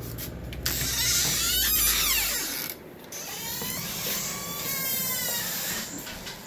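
Rubbing and scraping handling noise on the phone's microphone while the phone is moved, in two long rough stretches: the first lasts about two seconds, the second about three.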